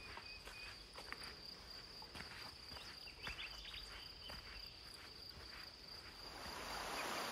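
Footsteps on a leaf-covered dirt trail, about two a second, under a steady high insect drone. Near the end the rush of a creek's small waterfall rises in.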